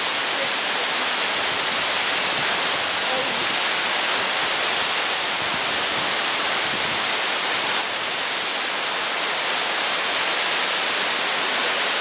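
Waterfall with a steady rush of falling water, a dense, even hiss.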